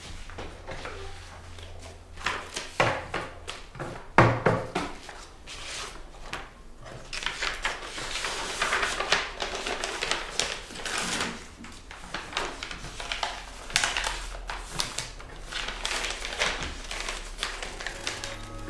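Sheets of paper rustling and shuffling as they are handled and stacked on a desk, in an irregular run of crinkles with a couple of sharper knocks about three and four seconds in.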